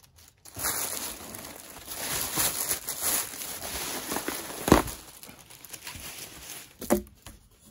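Heavy plastic wrapping film crinkling and rustling as it is pulled back and folded open by hand inside a cardboard box. A sharp knock comes about halfway through, the loudest sound, with a smaller knock near the end.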